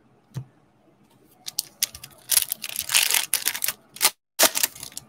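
Foil trading-card pack wrapper being crinkled and torn open: a dense run of crackly rustling with a short break just after four seconds, after a single light click near the start.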